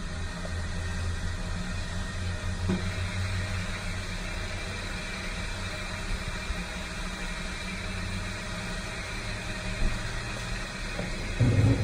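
Coin-operated car wash vacuum running with a steady motor drone and air-suction hiss. A louder bump comes near the end.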